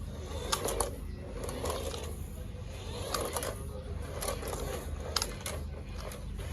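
Toy remote-control car's small electric drive motor and plastic gearbox running, with scattered clicks and scrapes from the wheels and body.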